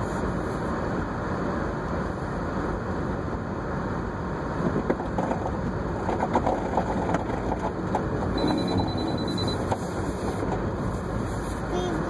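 Car driving on a snow-covered road, heard from inside the cabin: a steady rumble of tyres on packed snow and engine, turning rougher and rattly for a couple of seconds midway. A short high beep sounds about eight and a half seconds in.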